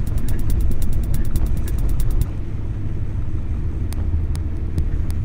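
Low steady rumble of the boat's motor and the water, with rapid, evenly spaced clicking from the fishing reel as the hooked sturgeon pulls line. The clicking stops about two seconds in, and only a few scattered clicks follow.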